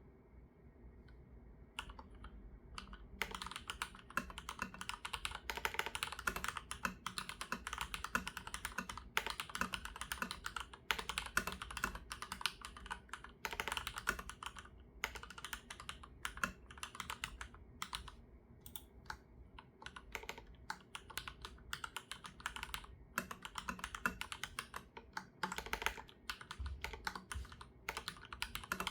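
Typing on a Leopold FC980M mechanical keyboard with Cherry MX2A Black linear switches on a hot-swap PCB: fast runs of keystrokes with short pauses, starting about two seconds in.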